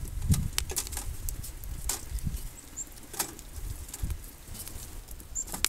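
Sticks of firewood being pushed into the side feed opening of a homemade steel rocket stove: irregular knocks and scrapes of wood against the metal.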